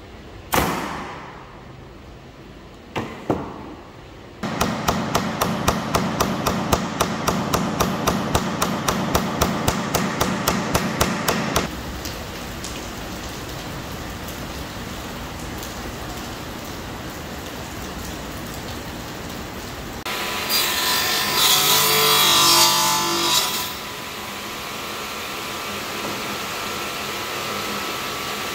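Pneumatic nail gun firing into wooden boards. One sharp shot comes about half a second in and two more follow a few seconds later, then a fast, even run of shots at about four a second for some seven seconds. After that there is a steady noise, and later a louder machine whir with a ringing tone lasting about three seconds.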